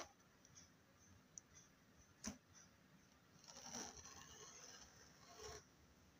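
Faint slime ASMR sounds, near silence: a single soft click about two seconds in, then a short stretch of quiet sticky crackling around the middle.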